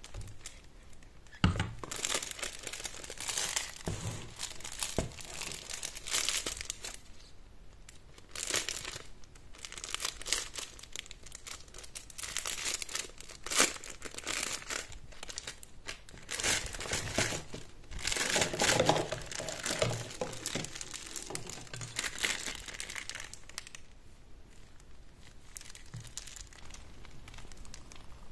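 Clear plastic piping bag crinkling and rustling in irregular bursts as gloved hands fill it with whipped body butter and work it down, with two sharp knocks along the way. The rustling drops off near the end.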